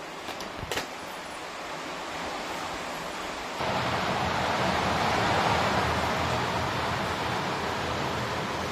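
A few light metal clinks of aluminium pots and bowls in the first second. From about three and a half seconds in, a steady hiss of chicken curry bubbling and simmering in a pan.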